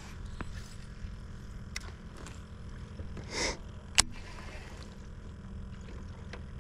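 Baitcasting reel being cranked to retrieve a lure, over a steady low rumble, with a few light clicks, a short hiss about three and a half seconds in and a sharp click at about four seconds.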